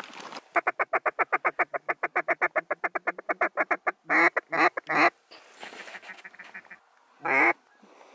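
Mallard duck call blown close by: a rapid feeding chuckle of about nine notes a second for three and a half seconds, then three loud quacks and, near the end, one longer quack, calling to circling mallards.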